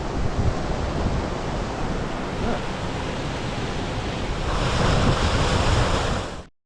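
Steady rush of a small moorland waterfall and stream, with wind buffeting the microphone. The rush grows louder and brighter a little past the middle, then cuts off abruptly near the end.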